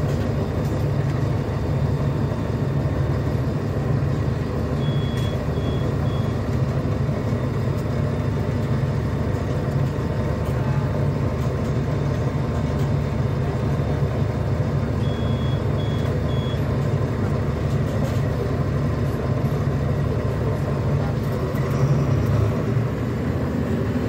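Mercedes-Benz O500U city bus engine running steadily, heard from inside the passenger cabin. Short high electronic beeps sound in groups of three, twice.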